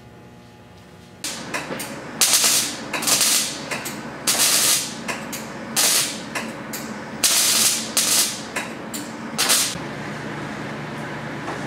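A motor starts about a second in and runs steadily, while about seven loud, short bursts of hissing air come one after another over the next several seconds.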